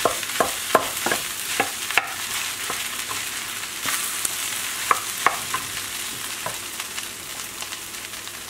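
Ham fried rice sizzling in a hot pan while a wooden spatula stirs and scrapes through it, with sharp knocks of the spatula against the pan, several in the first two seconds and a pair about five seconds in. The strokes die away near the end, leaving the steady sizzle.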